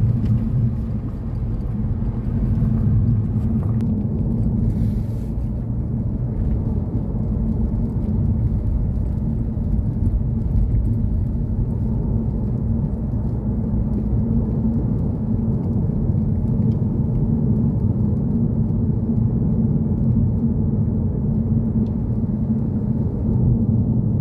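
Steady low drone of a car's road and engine noise heard from inside the moving car's cabin.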